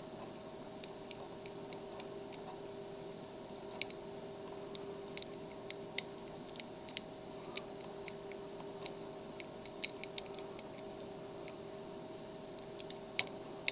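Lock pick working the pins of a Master Lock padlock under tension: small, irregular metallic clicks and ticks, some in quick clusters, over a faint steady hum.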